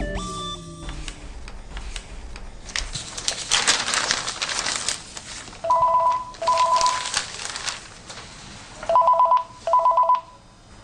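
A cordless phone handset ringing with an electronic trill, in two double rings about halfway in and near the end. Before the ringing, newspaper pages rustle.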